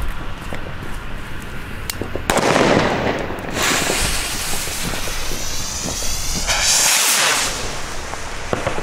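Funke firework rockets igniting and launching with a loud rushing hiss, which starts suddenly about two seconds in. A high hiss follows as they climb, with a second strong surge of hiss near the end.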